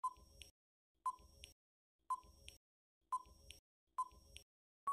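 Countdown timer sound effect: five short electronic beeps, one about every second, each followed by a fainter tick.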